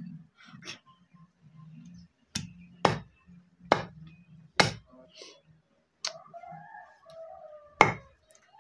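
Raw chicken being chopped into pieces with a knife: six sharp chops at uneven intervals, the last one near the end.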